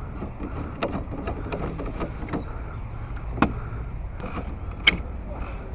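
Scattered clicks and knocks of an electric trolling motor's clamp bracket being tightened onto a wooden transom board, with two sharper knocks in the second half, over a steady low rumble.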